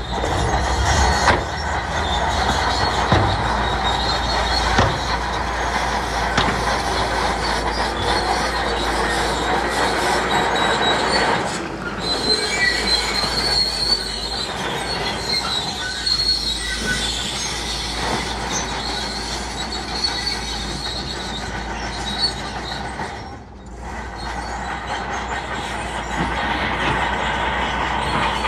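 Shantui crawler bulldozer working: its diesel engine runs under load while its steel tracks squeal and clank. The squeal is a high, wavering tone that goes on through the whole stretch.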